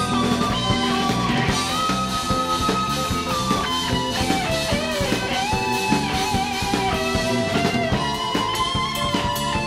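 Live instrumental rock band of electric guitar, drums, bass and keyboards playing: a lead guitar melody of held, sliding notes over steady drums and bass.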